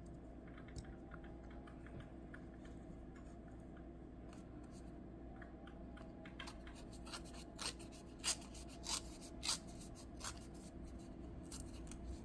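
Patterned scrapbook paper handled and torn by hand into jagged pieces: faint rustling, then about five short rips in the second half.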